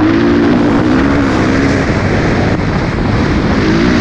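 Dirt bike engine running as it is ridden, its pitch falling over the first two seconds and climbing again near the end, with wind noise on the microphone.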